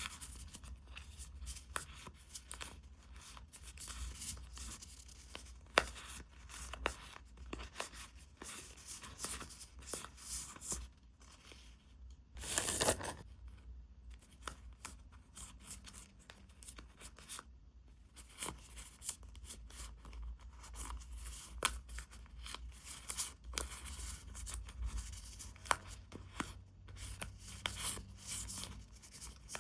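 Packaging being handled and opened by hand: plastic and paper rustling and crinkling with small taps and clicks, and one longer tearing rip about thirteen seconds in.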